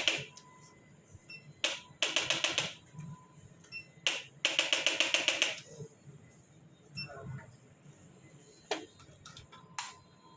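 Two bursts of rapid, even mechanical tapping, each lasting about a second, with a few single sharp clicks between them.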